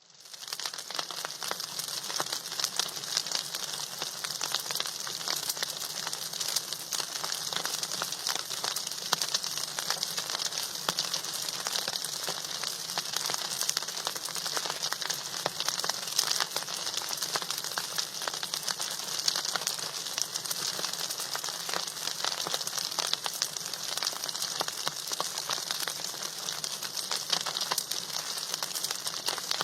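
Food frying in hot oil in a pan: a steady, dense sizzle and crackle of many small pops.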